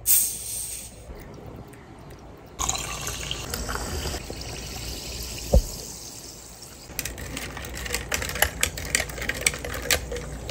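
A glass bottle's cap pried off with a short hiss of escaping gas, then a carbonated drink poured into a glass, fizzing steadily, with one sharp knock partway through. For the last few seconds it is stirred, with quick clinks against the glass over the fizz.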